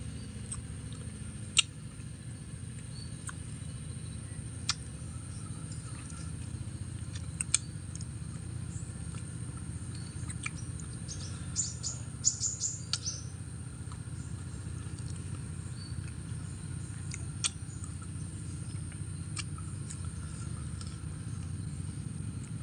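A person chewing unripe nam-nam fruit: scattered sharp mouth clicks and a short run of quick crunches about halfway through as a piece is bitten, over a steady low hum.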